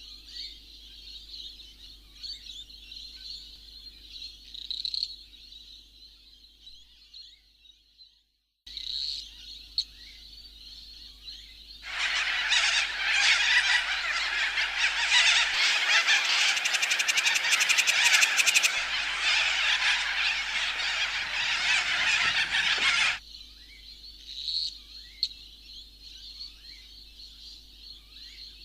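Outdoor nature ambience: a steady high-pitched animal chorus with short chirps over it. About twelve seconds in, a much louder rushing noise comes in and stops abruptly some eleven seconds later.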